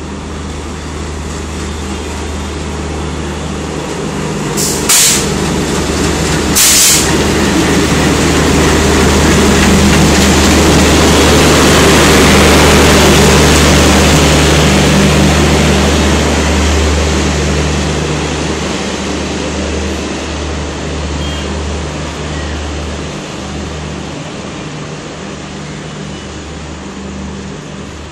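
A TKD-shed diesel locomotive hauling an arriving passenger express past: a steady engine drone under the train's rail rumble, which swells to its loudest about halfway through and then fades. Two short, sharp hisses of air come a few seconds in.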